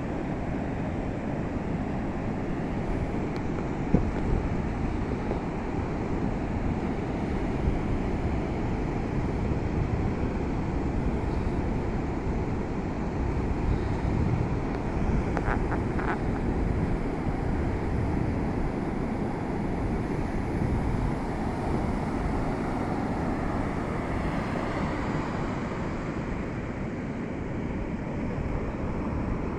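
Ocean surf washing onto a beach, with a steady rumble of wind on the microphone.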